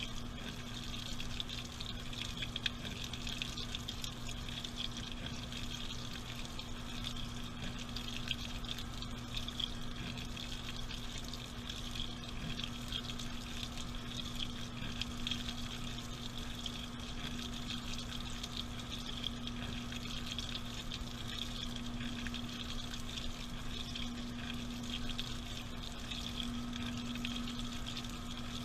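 Washing machine filling with water, heard from inside the drum: a steady rush of water with a constant low hum under it.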